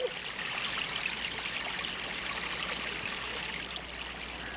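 Shallow water splashing and trickling steadily, stirred by yellow-billed storks wading and feeding in the shallows.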